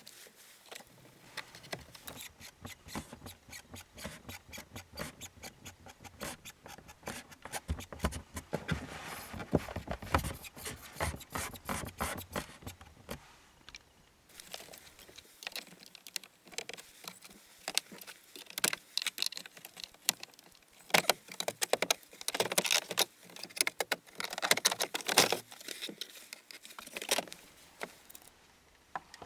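Hands working on plastic interior trim: many irregular clicks, taps and short scrapes and rustles, with a brief lull about halfway through.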